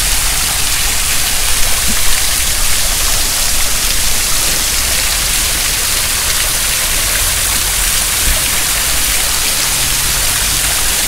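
Fountain water pouring off a metal swan sculpture and splashing into its basin: a steady rushing hiss.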